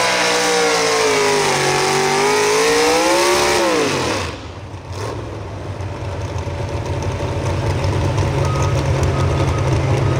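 A naturally aspirated pulling truck's engine, run through open exhaust stacks, screams at full throttle under load at the end of a pull. Its pitch sags as it bogs, then climbs briefly before the revs drop off sharply about four seconds in as the throttle is released. It settles into a rough, lumpy idle.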